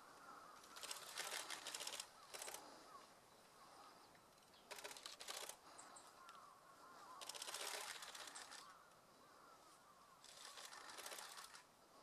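Faint outdoor ambience of distant birds calling, broken every couple of seconds by several short, harsh, noisy bursts.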